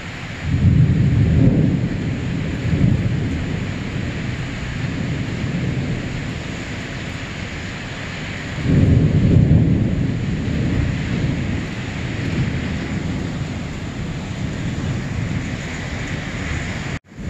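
Heavy rain falling steadily during a thunderstorm, with two loud low rolls of thunder, the first about half a second in and the second about nine seconds in, each rumbling on and fading over a few seconds.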